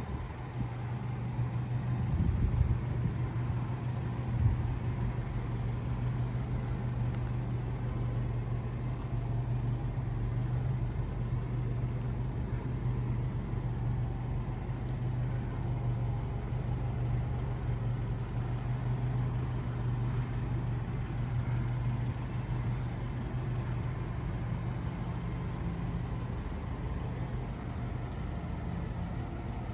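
Nissan Atlas 150 truck engine idling with a steady low hum. A few low rumbles and a knock come in the first few seconds.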